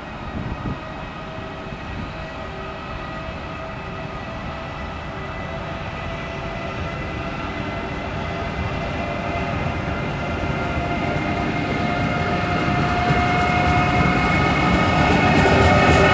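Train approaching, growing steadily louder, with a steady whine of several held tones over the running noise.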